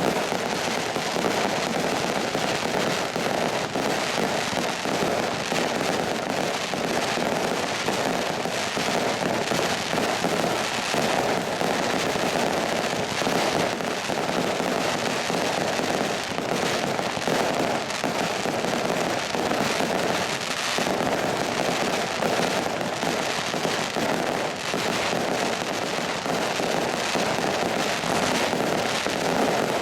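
Fireworks display: a dense, unbroken barrage of shell bursts and crackling.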